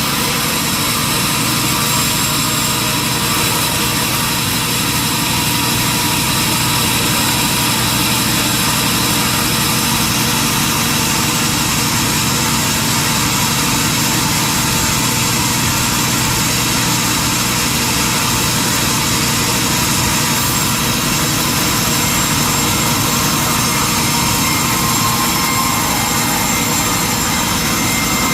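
Sawmill machinery running steadily: a constant mechanical drone with a strong high hiss that holds without pauses or changes.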